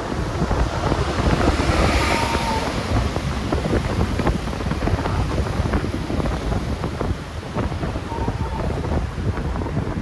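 Wind buffeting the microphone on a moving motorbike, over a steady rumble of engine and road noise from traffic.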